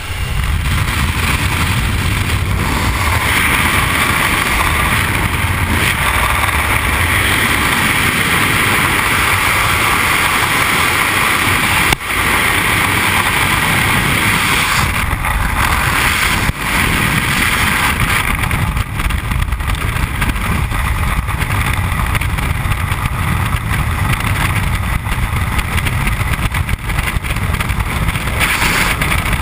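Loud, steady rush of wind over a helmet camera's microphone in the airflow of a skydive, outside the jump plane and in freefall.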